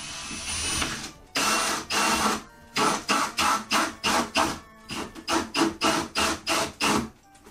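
Cordless drill with a 32 mm hole saw cutting through a Pokémon card and cardboard: it runs steadily for about a second, gives another longer burst, then is pulsed on and off in a quick string of short bursts, about three a second.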